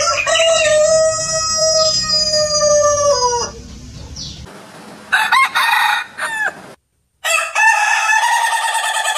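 Roosters crowing, three crows in turn. The first is long and held, dropping in pitch at its end; after a pause comes a shorter crow, then, following a brief gap of silence, another crow that runs on.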